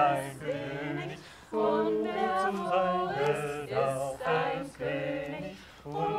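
A small group of men's and women's voices singing together a cappella, in sung phrases with a brief pause about a second and a half in.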